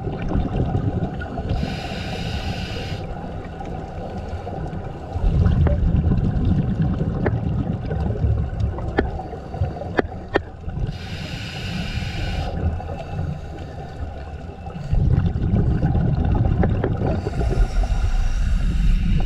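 Scuba regulator breathing heard underwater: three hissing inhalations, and between them the low bubbling rumble of exhaled air streaming out. A few sharp clicks come around the middle.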